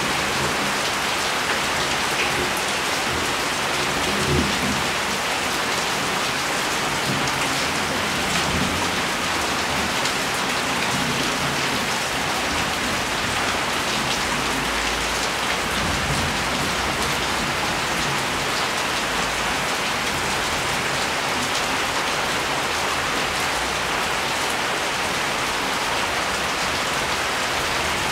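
Steady rain falling and pattering on surfaces, with a few low rumbles of distant thunder, the longest about a quarter of the way from the end of the first half.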